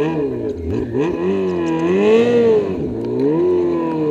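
Snowmobile engine running under a varying throttle, its pitch falling and rising several times. It climbs to a high point a couple of seconds in, drops, then rises again and holds steady near the end.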